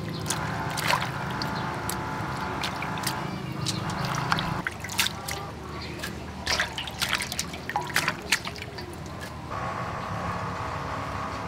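Leafy greens being washed by hand in a stainless steel bowl of water: swishing, with water trickling and dripping off the leaves as they are lifted out. The splashing stops near the end.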